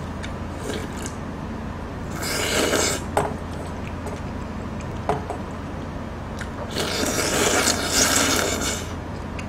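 Slurping kalguksu noodles and broth straight from the bowl: two long slurps, the second longer, about four seconds apart, with a couple of sharp clicks between them, over a steady low hum.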